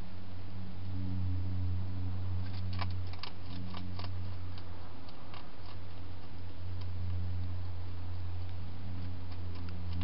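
Hedgehog eating from a dish inside a plastic feeding box: a run of sharp clicks and crunches a few seconds in, with scattered single ticks, over a steady low hum.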